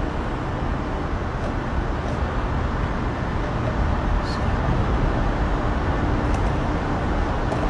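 Steady outdoor street ambience: a low rumble of traffic, with a few faint high clicks.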